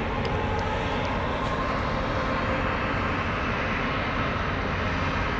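Steady low engine drone of a large ship moving slowly past at close range, with an even hum and no change in pitch.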